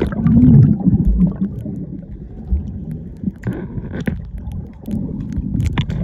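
Muffled underwater sound of a swimming pool heard through a submerged camera: low rumbling and gurgling of moving water and bubbles, with scattered small clicks. It is loudest in the first second, as the camera plunges in.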